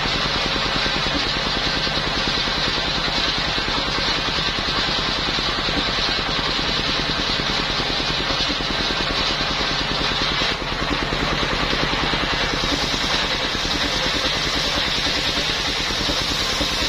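Engine-driven circular sawmill running steadily, with a brief dip about ten and a half seconds in.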